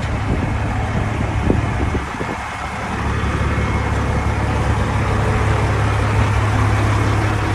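Truck engine running, a steady low drone with a brief dip in level about two seconds in.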